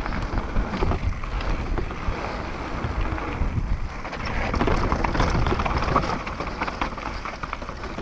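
Wind buffeting the helmet-mounted action-camera microphone during a fast downhill run, with the Pivot Phoenix downhill bike's chain and frame rattling and knocking over trail bumps.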